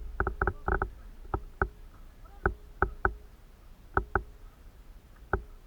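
A series of about a dozen sharp, irregular clicks, some in quick pairs or runs, each with a short ringing tone.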